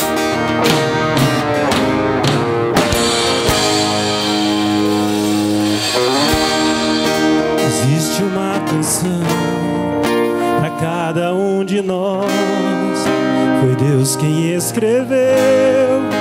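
Live worship-band music: an acoustic guitar strummed over sustained keyboard chords. A man's singing voice comes in about ten seconds in.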